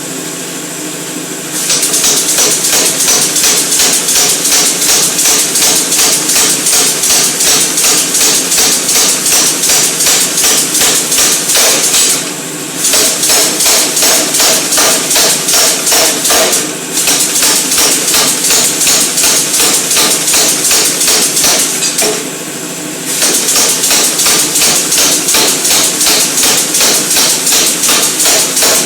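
Air hammer (pneumatic power hammer) striking in a fast, steady run of blows through a fabricated combination spring die, stopping briefly a few times. A steady machine hum runs underneath.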